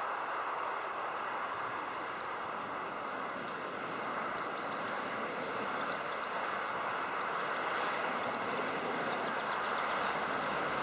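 Class 47 diesel locomotive's Sulzer twelve-cylinder engine running as it approaches at low speed with its train, growing slightly louder in the second half.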